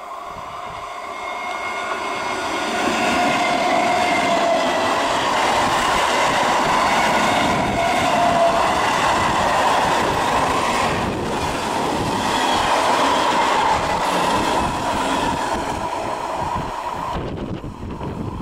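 Electric multiple unit (EMU) local train passing close by on a curve: the rumble and clatter of its wheels on the rails, with steady squealing tones from the wheels. The sound builds over the first few seconds and eases off near the end.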